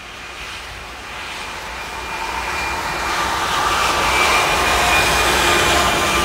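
A lash-up of BNSF GE diesel locomotives, two C44-9Ws and an ES44AC, approaching and passing under power. The sound grows steadily louder, with a steady high whine over the engine noise.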